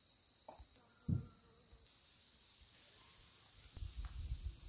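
Steady, high-pitched drone of insects, with short fast-pulsing chirps in it near the start and again near the end. A soft thump about a second in and some low rumbling near the end.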